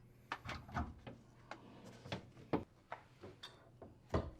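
Scattered light clicks and knocks, about ten, as the garbage disposer's mounting lock ring is turned and the unit is taken down from the sink, with a sharper knock near the end.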